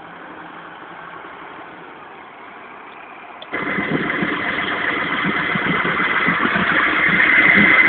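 McCormick MC 90 tractor engine running steadily at idle. About three and a half seconds in, a much louder, harsh sound cuts in suddenly, with a steady high tone through it, and grows louder towards the end.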